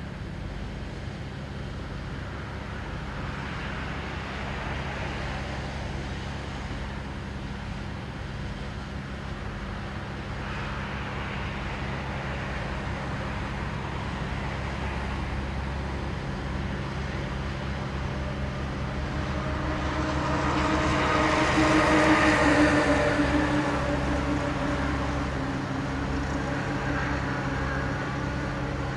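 Diesel engine of an inland motor cargo ship passing, a steady low hum that grows louder to a peak about two-thirds of the way through, then fades.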